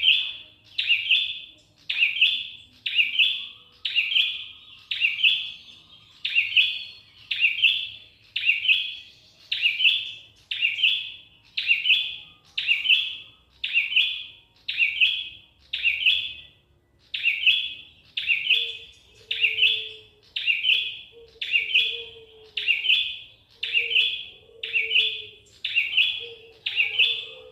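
Prenjak kepala merah, a small warbler, repeating one short, high call note about once a second in a very even rhythm.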